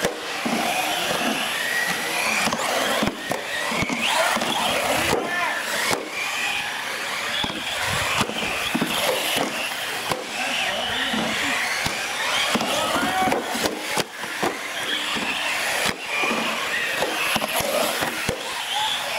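Radio-controlled model cars racing on a bare concrete floor: their motors whine, rising and falling in pitch as they speed up and slow down, with frequent short knocks and tyre scuffs.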